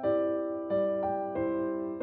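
Slow, gentle piano music: three chords struck in turn, each fading before the next.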